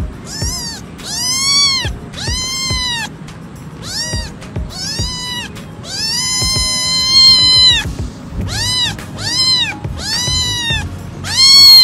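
Young orange tabby kitten meowing repeatedly, about ten high-pitched meows, each rising and falling in pitch, with one long drawn-out meow in the middle.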